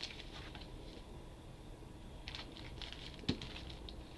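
Sheets of patterned cardstock being handled and shuffled: faint paper rustling, with a light tap a little over three seconds in.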